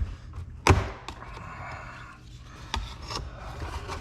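Console filler panel being worked loose by hand: a sharp knock just under a second in, then about a second of scraping and rubbing, with a few light ticks near the end.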